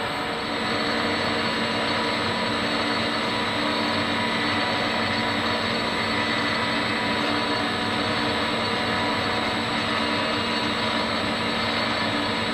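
Warco 280 metal lathe running at a steady speed, its motor and gearing giving an even mechanical hum with a steady low tone.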